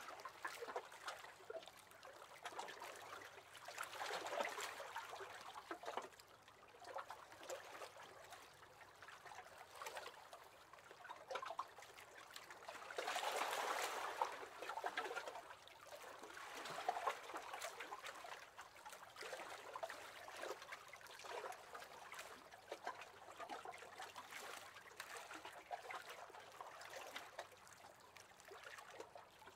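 Small waves lapping against the hull of a wooden rowing boat: irregular soft sloshes and splashes of water that swell and fade, loudest about halfway through.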